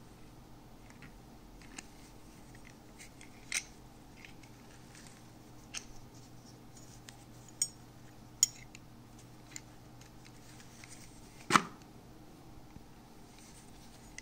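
Handling noise from a hand-held electronic luggage scale and its strap and hook: scattered small clicks and taps every second or two, with one louder knock late on.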